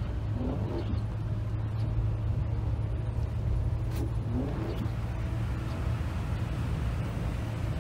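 Tour coach driving on a wet road, heard from inside the cabin: steady engine hum with tyre and road noise, and a single sharp click about four seconds in.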